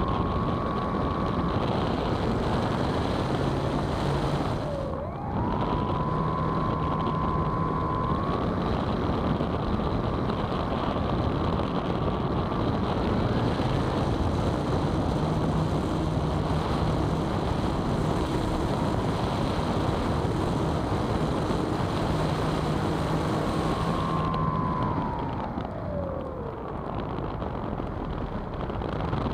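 Electric motor and propeller of a HobbyKing Cloudsurfer RC glider whining under power, heard through the onboard action camera, with wind rushing past. The whine dips and comes straight back up about five seconds in. Near the end it slides down in pitch as the motor slows.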